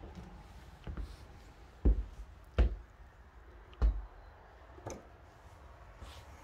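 Footsteps of someone walking across a carpeted floor: about five dull, low thumps, roughly one a second, the middle three the loudest.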